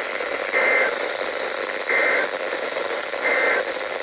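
Emergency Alert System end-of-message code: three short warbling two-tone digital data bursts about a second and a half apart, over a steady radio static hiss. The bursts signal the end of the alert.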